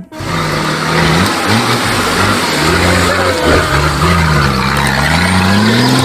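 An off-road buggy's engine running hard over a steady rush of noise, its pitch rising and falling as it revs.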